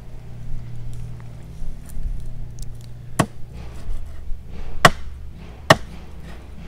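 Three sharp chopping strikes, the second about a second and a half after the first and the third under a second later, over a low steady hum.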